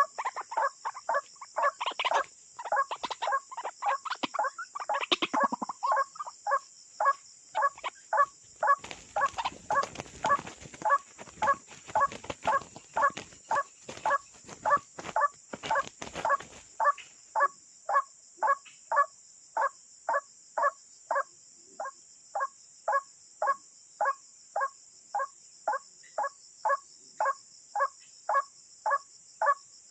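Ruak-ruak (white-breasted waterhen) calls, one short harsh note repeated very evenly about twice a second. A steady high hiss runs under it, and a rough noise covers the middle stretch from about nine to sixteen seconds in.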